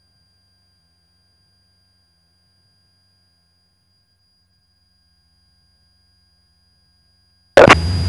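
Near silence on the cockpit intercom audio feed, with only a faint steady high-pitched tone. Near the end, a loud burst of radio noise cuts in suddenly as the aircraft radio audio opens up.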